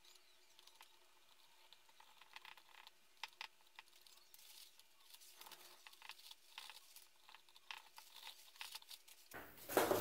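Cotton swab and tissue scrubbing and wiping a freshly soldered speaker amplifier circuit board with alcohol: faint scratchy rubbing with light scattered clicks. Near the end, louder knocks and clatter of handling begin.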